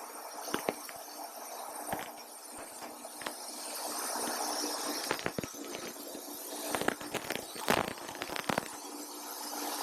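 A steady machine hum and hiss under scattered knocks and clatter, with the knocks coming thicker and louder from about halfway through.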